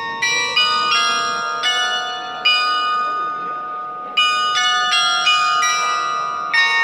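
The Glockenspiel bells on the gable of Hameln's Hochzeitshaus playing a tune, one struck note at a time, each note ringing on. There are two phrases with a short pause between them.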